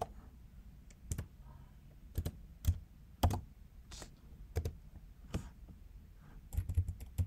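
Typing on a computer keyboard: single keystrokes spaced irregularly, about one every half second to a second, then a quick run of several keys near the end.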